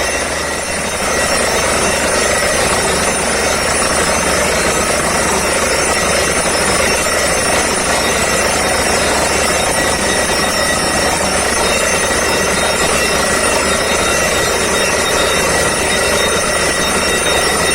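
Borewell drilling rig running steadily under load, its engine and air compressor making a loud continuous noise with a steady high whine on top. The level dips slightly about half a second in.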